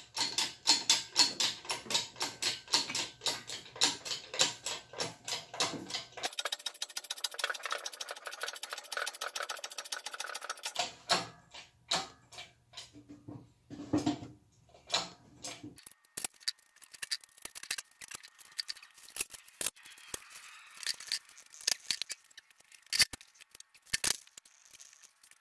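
Rapid metallic clicking and rattling from a lifting chain, hook and ratchet straps being rigged onto a battery module. There is a fast run of fine clicks in the middle and scattered clicks near the end.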